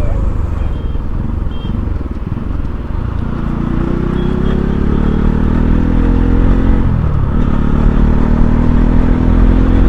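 Bajaj Pulsar NS200 single-cylinder engine running while riding, over a heavy low rumble. Its note climbs slowly from about four seconds in, drops sharply for a moment near seven seconds, then climbs again.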